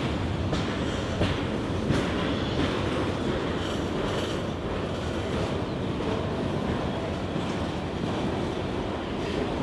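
A train rolling past on the rails, a steady rumble with sharp wheel clicks over the rail joints, most of them in the first two seconds.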